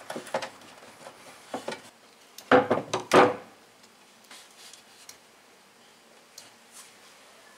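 Pliers and a small screwdriver clicking and scraping against a small metal crimp terminal and a wooden tabletop as the terminal of a burnt shower heating element is pried open. A couple of louder knocks come about two and a half to three seconds in, then only faint scraping and ticks.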